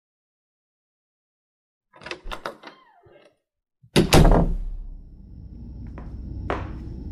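Sound-effect door: a few latch clicks and a short creak, then the door shuts with a loud thud and a low boom about four seconds in. A steady low room drone follows, with scattered sharp ticks.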